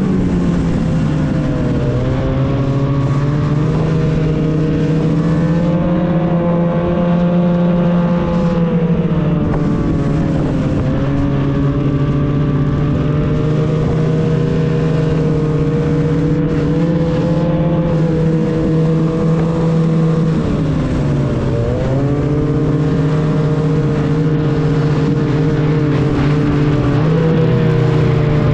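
A vehicle engine running continuously, its pitch easing off and picking up again a few times, most deeply about twenty-one seconds in.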